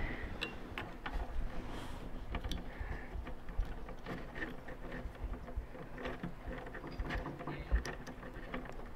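Faint, irregular small clicks and taps of handling as a new brake-light bulb is worked into its plastic socket in a Ford Focus ST tail-light housing.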